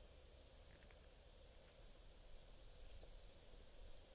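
Near silence: a faint, steady, high insect hum over a low rumble. A short run of quick, high, falling bird chirps comes about two and a half seconds in.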